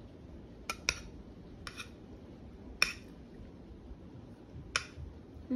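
Metal spoon clinking against a dish while eating pasta: five sharp, short clinks at irregular intervals.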